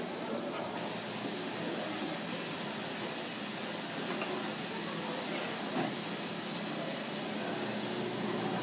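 Steady kitchen background noise: an even hiss with a low hum underneath, and one light knock about six seconds in.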